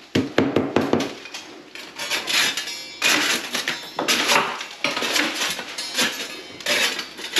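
Crumbling plaster being chipped and scraped off a water-damaged ceiling with a metal scraper: a quick run of sharp knocks, then rough scrapes about once a second.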